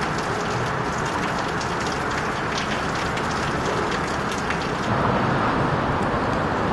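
Hurricane wind driving heavy rain: a steady rushing noise with a crackle of rain hits on top. It gets a little louder about five seconds in.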